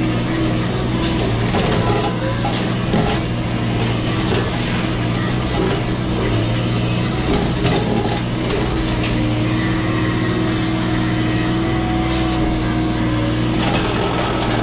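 Mini excavator's diesel engine running steadily at working speed, with a hydraulic brush cutter attachment crushing and splintering brush and wood in irregular cracks and knocks.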